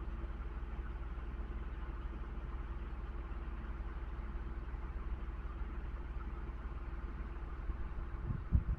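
Steady low mechanical hum, with a few low thumps near the end.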